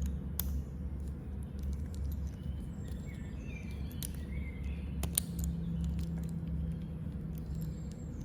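Steady low background hum with faint bird chirps, and a few light clicks from the screwdriver and its bits being handled; one click about five seconds in is sharper.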